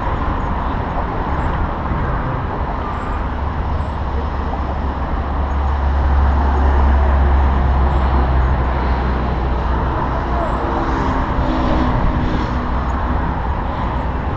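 Road traffic noise with a steady low rumble of vehicle engines that swells about six seconds in.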